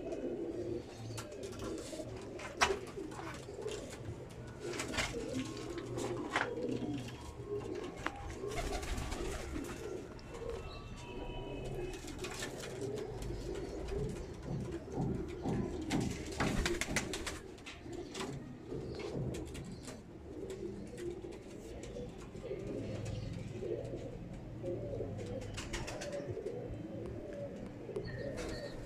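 Several Imam Deen pigeons cooing together in overlapping, wavering calls, with occasional sharp clicks and taps in between.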